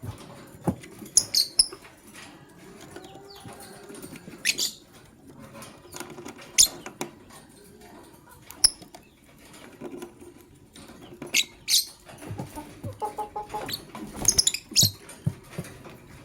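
Lovebirds giving a handful of short, sharp, high chirps spaced a couple of seconds apart, among wing flutters and light scrabbling and clicking.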